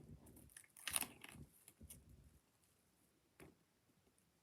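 A brief crinkle of plastic packaging being handled about a second in, followed by a few faint clicks; otherwise near silence.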